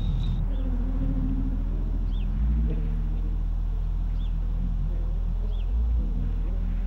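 A low, steady droning soundtrack with a deeper pulse swelling about every three seconds. Faint short high chirps sound about once a second over it.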